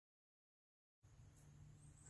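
Near silence: dead digital silence, then faint room tone with a low hum from about a second in.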